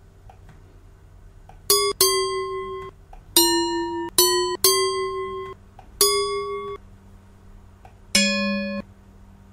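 A short run of seven pitched notes from a recorded audio sample played back at different pitches in LMMS. Each note starts sharply, fades and cuts off abruptly. The last note is lower than the others.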